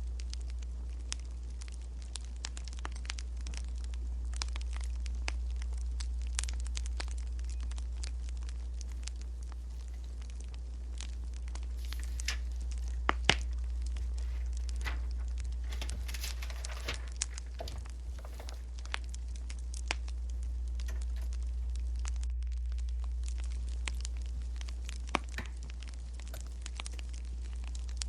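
Crackling wood fire with scattered small pops over a steady low hum, mixed with desk sounds of someone studying. There is a paper rustle a little past halfway and a few sharper taps.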